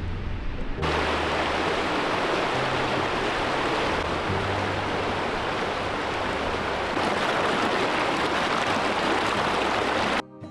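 Rushing water of a stream, a steady full hiss that cuts in about a second in and stops abruptly near the end, with faint background music underneath.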